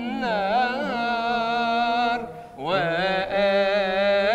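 A male munshid singing a Sufi devotional hymn solo, in long wavering melismatic notes. He breaks off about halfway through and comes back in with an upward slide into the next phrase.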